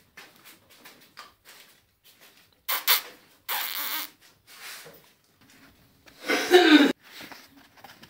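Black Cane Corso puppy chewing a rubber chew toy: scattered small clicks and gnawing noises, with a couple of short, louder breathy bursts, the loudest about six seconds in, falling in pitch and cutting off suddenly.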